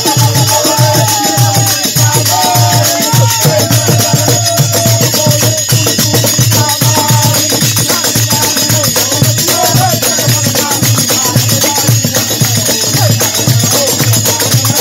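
Live Holi folk song (holi geet): a hand drum beats a fast, steady rhythm under the jangle of small metal hand cymbals and hand-clapping. A group of men sings the melody, strongest in the first half and again near the middle.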